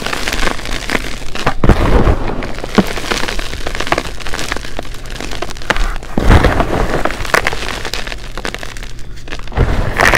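Gym chalk being crushed by gloved hands: dense crunching and crumbling, with three heavier thuds, about two seconds in, about six seconds in, and near the end.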